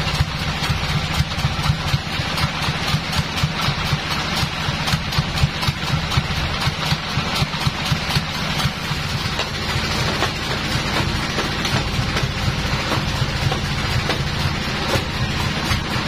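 Sawmill engine running steadily at idle with a regular low pulse, no wood being cut.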